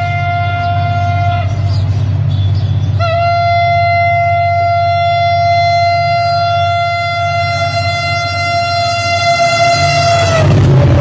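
Henschel diesel locomotive sounding its horn as it approaches and passes: the end of one blast, then a long single-note blast of about seven seconds. The blast drops in pitch near the end as the locomotive goes by, over a steady low engine rumble.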